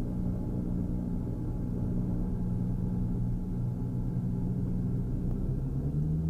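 Twin piston engines of a Cessna 340 running steadily at low power, heard from inside the cockpit as a low, even drone. Near the end the pitch starts to rise as the throttles come up for the takeoff roll.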